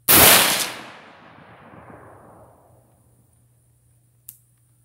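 A single rifle shot from an AR-15 chambered in 7.62x39, its report dying away over about two and a half seconds. A short faint click follows about four seconds in.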